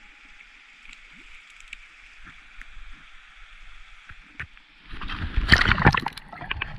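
Mountain stream running steadily, then about five seconds in a much louder noise close to the microphone with several sharp knocks.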